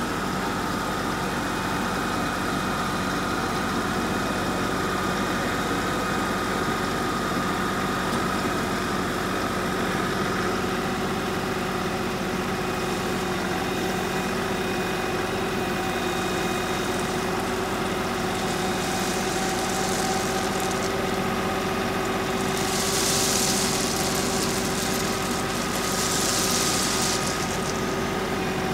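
LS XR3135 compact tractor's diesel engine running at a steady speed, with a few brief hissing rushes in the last third.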